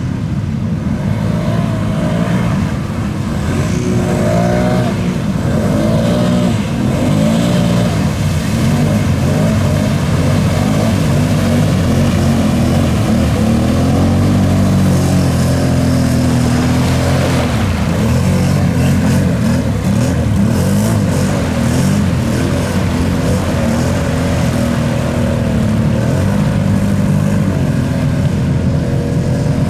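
Off-road vehicle engines revving, their pitch rising and falling again and again over a continuous loud run.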